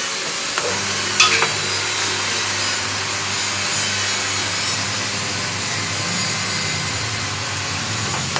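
Coconut milk pressing machine running, a steady rasping grind over a low motor hum, with a few sharp clicks about a second in.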